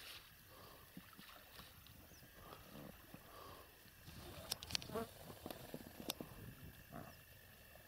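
Faint, distant splashes and knocks from an inflatable boat as a long wooden pole is worked in the water, a few sharper ones in the second half, over a faint steady high hum.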